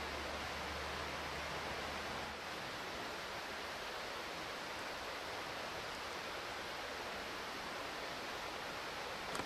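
A steady, even hiss with no distinct events, and a low hum underneath it for the first two seconds or so.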